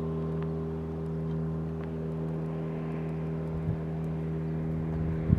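A sailboat's engine running steadily at low speed while the boat motors slowly through the anchorage. It is an even, unchanging hum.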